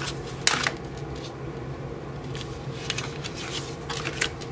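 Oracle cards from the Witches' Wisdom and Witches' Kitchen decks being flipped and laid down on their piles: light snaps and slides of card stock, the sharpest a double snap about half a second in. A faint steady hum lies underneath.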